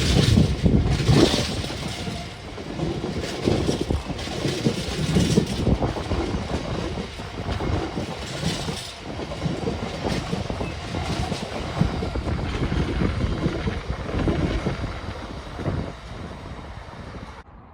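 A heavily loaded intermodal container train's wagons rolling past: a continuous rumble with repeated clacks of wheels over the rails, dying away near the end.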